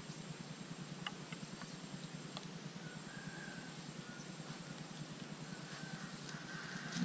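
Quiet outdoor ambience: a steady low hum with a few faint clicks in the first couple of seconds, and from about three seconds in a faint, wavering, drawn-out high call.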